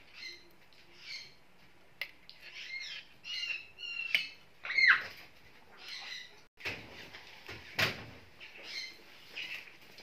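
Pet parrot giving short, repeated squawks and chirps, a call every second or so, with a louder call about five seconds in that slides down in pitch. A short knock comes near the eight-second mark.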